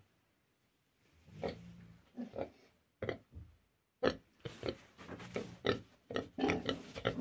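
Vietnamese pig grunting: a few separate short grunts starting about a second in, then a quicker, nearly unbroken run of grunts from about four seconds in.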